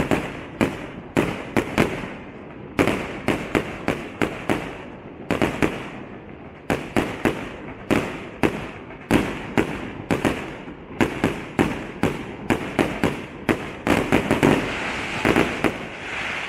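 Fireworks display: aerial shells bursting in a rapid, continuous series of sharp bangs, about two a second and some in quick clusters. Near the end the bangs merge into a steadier rush of crackling.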